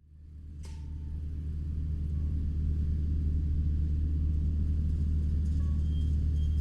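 A tractor pulling a baler runs with a steady low engine drone, which fades in over the first two seconds. There is a short click about half a second in.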